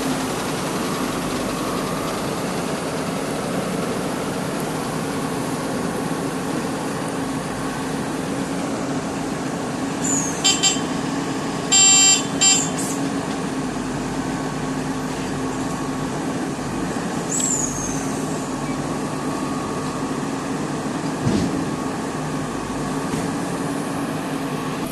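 Diesel engine of a JCB 3DX backhoe loader running steadily under work, with a few short vehicle horn toots about ten to twelve seconds in, the loudest sounds here.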